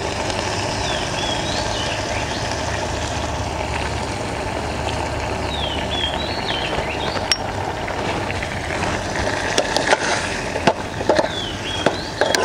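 Steady hiss of a portable gas stove's burner under a pot of simmering curry. Near the end a metal ladle clinks against the aluminium pot several times as the curry is stirred.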